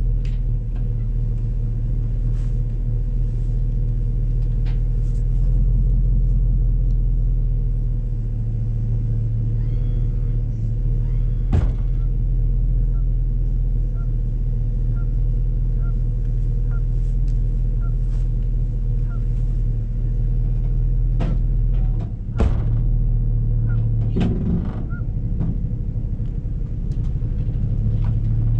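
Tow vehicle's engine idling steadily, heard close to the camera, with a few sharp knocks and thumps along the way.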